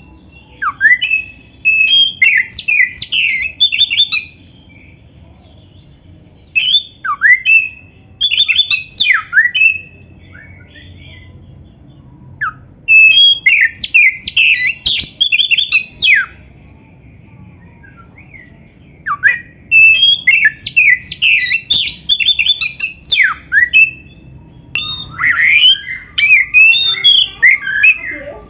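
Oriental magpie-robin (kacer) in full song: rapid runs of clear whistles, sweeping slurs and harsher chattering notes, delivered in loud phrases of a few seconds each separated by short pauses.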